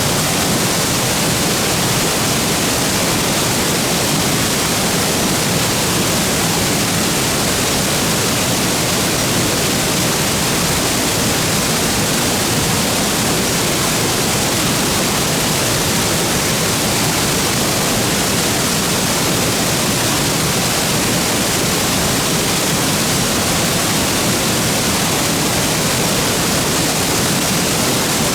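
Waterfall pouring steadily into its plunge pool: a loud, even rush of falling water without a break.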